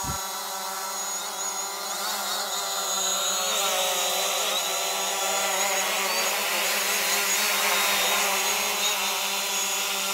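Hubsan Zino quadcopter's propellers whining as it hovers close by, a many-toned buzz with slight wavers in pitch as the motors adjust. It grows louder a few seconds in as the drone comes nearer overhead.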